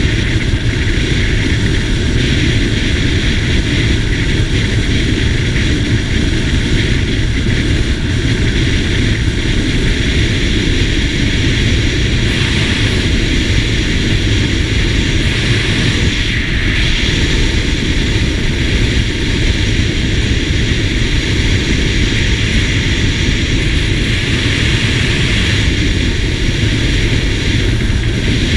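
Steady, loud roar of wind rushing over the microphone, mixed with the engine and tyre noise of a SYM GTS 250 scooter cruising at open-road speed.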